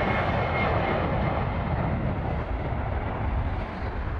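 A McDonnell Douglas MD-11 freighter's jet engines running loud as it moves along the runway: a steady roar with deep rumble and a high whine that fades out after about a second. The roar eases slightly near the end.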